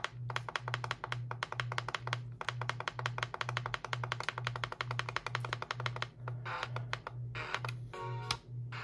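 A fast, even run of sharp clicks, about eight a second, from an Etón Zoneguard weather radio as its keypad is worked to step through settings. The clicks thin out to a few scattered ones after about six seconds, over a low hum that pulses a couple of times a second.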